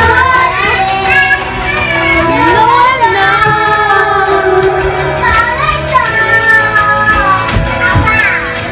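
Loud background song with a singing voice over steady accompaniment, cutting in suddenly at the start.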